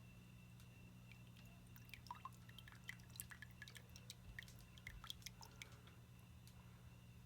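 Engine oil dripping: faint, irregular drips over a steady low hum.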